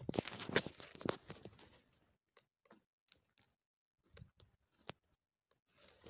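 Rustling of grass and small plants close to the microphone, dying away about two seconds in, followed by a few faint scattered clicks and ticks.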